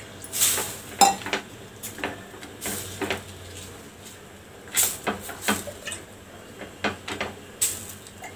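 A hand spreading water over a bhakri on a hot iron tawa: irregular light taps, knocks and clinks of hand, griddle and a steel water vessel, a dozen or so, some sharp.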